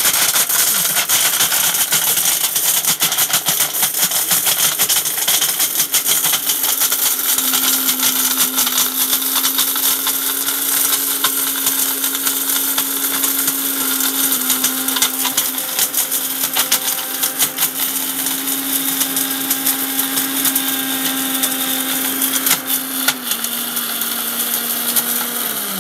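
Sujata mixer grinder running at full speed, grinding whole dried turmeric roots in its steel jar. The motor's whir is peppered with hard rattling and clicking as the turmeric pieces are smashed against the steel, and a steady hum rises out of the noise about a quarter of the way in.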